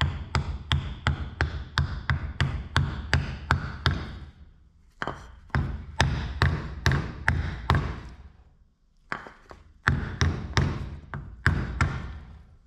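Hammer striking a wooden block to drive a new seal into a John Deere 425 mower deck spindle housing: quick sharp knocks about three a second, in three runs with brief pauses between them.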